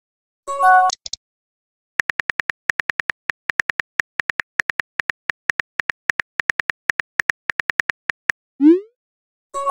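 Phone keyboard click sounds tapping out a text message, about six clicks a second for some six seconds. A short message-alert chime sounds about half a second in, and a quick rising swoosh of a message being sent comes near the end.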